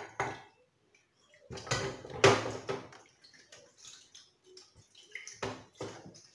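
Water running for about a second and a half into a plate of leftover chermoula marinade, thinning it with a little water, followed by light knocks of dishes.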